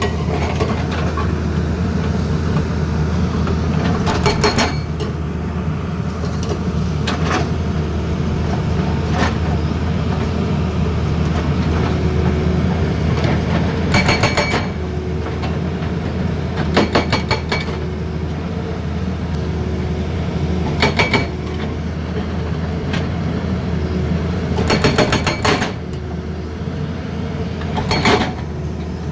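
Excavator diesel engine running steadily under load, with short bursts of rapid metallic hammering from a hydraulic breaker about eight times.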